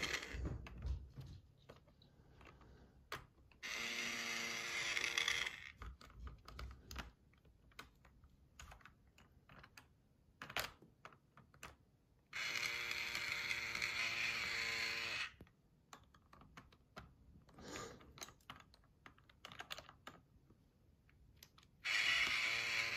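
Toy electric drill whirring in three bursts of two to three seconds as it drives plastic screws into a pegboard, with light plastic clicks and taps of the pieces between the bursts.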